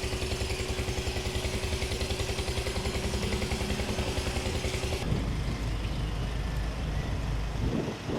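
A small engine running at a steady idle with a fast, even beat. About five seconds in it cuts off abruptly to a duller, rumbling outdoor background.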